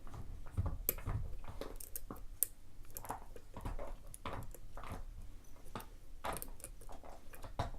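A lock pick scraping and clicking against the pin stacks inside the Virgo Maiden challenge lock during single-pin picking, with irregular small ticks and short scratches as the pins are lifted and set.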